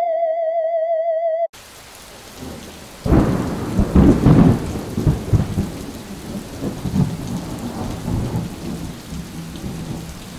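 A steady electronic tone with a wavering pitch cuts off abruptly about a second and a half in. A steady rain hiss follows, with a deep rolling rumble of thunder that is loudest a couple of seconds later and then slowly dies away.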